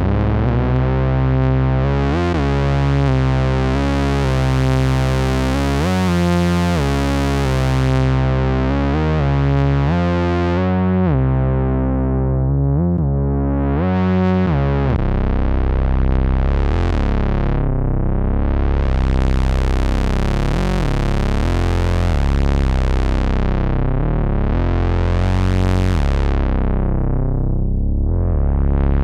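Moog Minitaur analog bass synthesizer playing sample-pack sounds: first a run of held bass notes changing every second or two, then from about halfway a sustained bass tone whose filter sweeps slowly open and shut, about every three seconds.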